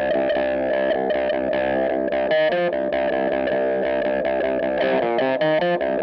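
Electric guitar riff played through a Jam Pedals Seagull cocked-wah pedal with its level turned down, giving a really lo-fi, thin tone with the top end cut off. The picked notes run on without a break.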